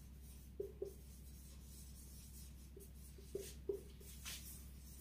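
Felt-tip marker squeaking and scratching on a whiteboard as words are written, a handful of short faint squeaks with pauses between strokes.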